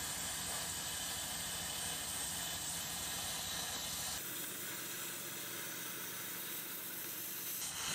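Plasma cutter torch cutting an aluminium alloy wheel, a steady hiss of compressed air and arc. About four seconds in the hiss loses its low rumble and turns thinner.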